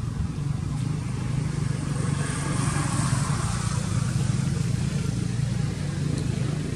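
A motor vehicle's engine running as a steady low hum, with a wash of hiss swelling and fading about two to four seconds in.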